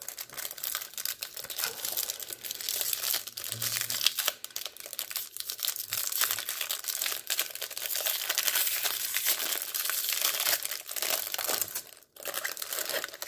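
Thin plastic wrapper of a baseball card hanger pack being torn open and peeled off the card stack by hand: continuous crinkling and crackling, with a brief pause about twelve seconds in.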